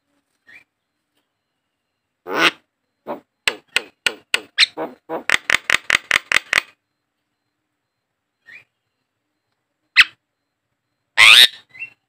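Javan myna (jalak kebo) calling: a harsh squawk, then a run of sharp clicking notes lasting about three seconds that speeds up, then two more harsh calls near the end.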